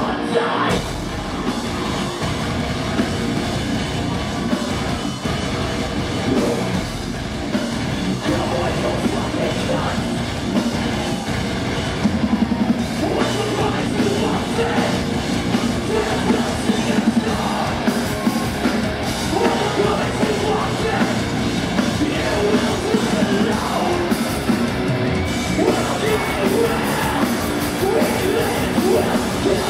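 Metalcore band playing live at full volume: distorted electric guitars, drums and vocals, recorded from within the crowd.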